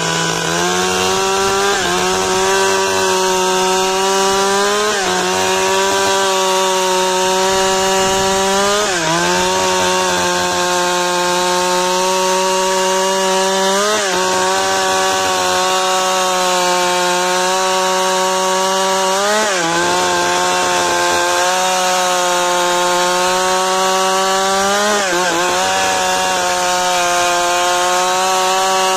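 Large two-stroke chainsaw at full throttle ripping a log lengthwise into planks along the grain. The engine pitch dips briefly and recovers about every five seconds as the cut loads it.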